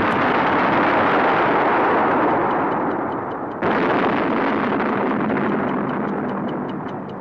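Animated-film explosion and destruction sound effect: a loud, continuous rumbling roar that drops and then comes back suddenly about three and a half seconds in before fading. Near the end, fast even ticks come in, about five a second.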